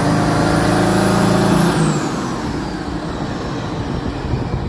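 John Deere four-wheel-drive tractor's diesel engine racing out of control in a runaway, which the owner puts down to too much ether as it picked up fuel, with a high whine slowly climbing over it. About a second and a half in the engine is shut off and winds down, the whine falling away.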